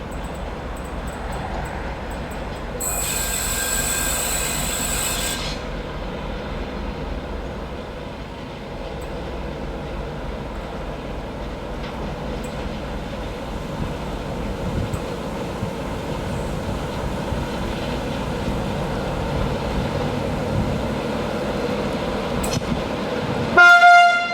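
An S200 diesel locomotive hauls a slow train, its engine and wheels making a steady low rumble. For a couple of seconds early on there is a high-pitched squeal of wheels on rail. Just before the end comes a short, loud blast of the locomotive's horn.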